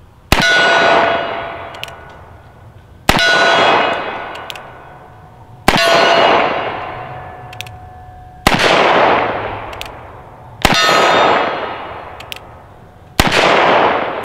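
Six shots from a .45 Colt single-action revolver, a Traditions (Pietta-made) Single Action Army replica, firing smokeless Aquila cowboy action loads, about two and a half seconds apart. Each shot cracks sharply, then rings and echoes away over a second or two.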